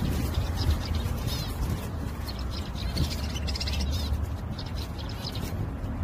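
Society finches chirping in a cage: clusters of short, quick, high chirps over a steady low rumble.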